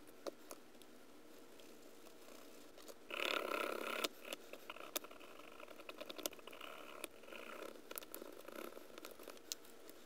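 Scraping and rubbing on a rusty pocket-knife blade as rust is cleaned off with a pointed wooden stick and a cloth. A burst of harder scraping comes about three seconds in, followed by lighter, stop-start scratching with small clicks.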